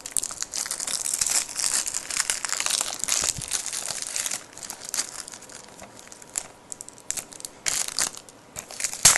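Plastic packaging of a Blu-ray case crinkling and rustling as it is handled and opened, dense for the first few seconds, then sparser, with a sharp click near the end.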